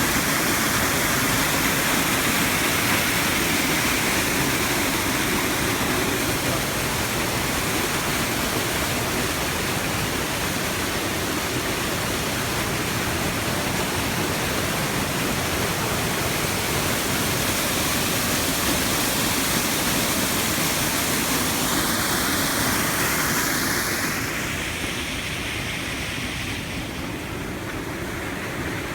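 Waterfall, a steady rush of falling water that becomes a little quieter near the end.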